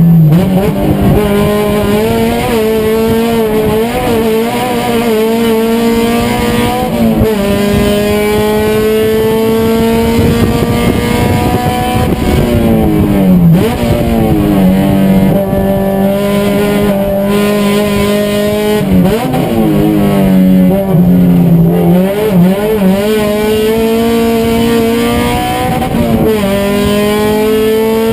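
Race car engine under hard acceleration, its pitch climbing steadily and dropping sharply again and again as it shifts gears and lifts for corners.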